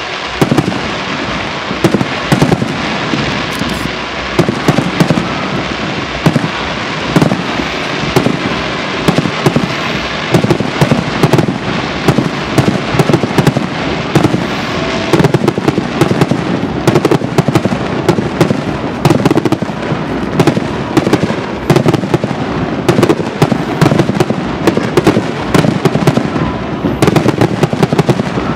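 Aerial fireworks shells bursting in a dense barrage: rapid, overlapping bangs and crackles, several a second, over a steady rushing hiss.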